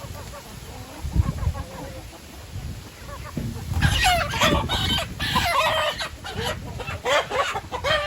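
Several chickens clucking and calling in a busy flurry of short, bending cries that start about four seconds in. Before that there is only a low rumbling noise.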